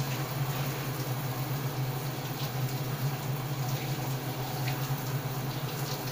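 A steady hiss with a constant low hum underneath and a few faint ticks.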